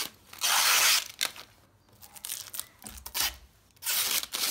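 Clear protective plastic film being peeled off the glossy plastic base of a desk lamp: two loud ripping pulls, one about half a second in and one near the end, with softer crinkling of the film between.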